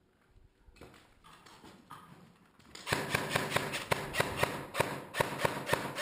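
Airsoft gun firing a rapid string of shots for about three seconds, starting about three seconds in: sharp evenly spaced clacks over a steady motor hum, typical of an electric airsoft rifle on full-auto. Before that, only faint rustling.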